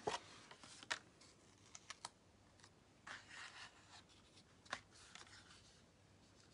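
Faint handling of paper cardstock: a folded card base and an embossed card panel being picked up and lined up by hand, giving a few light taps and ticks and a short rustle about three seconds in.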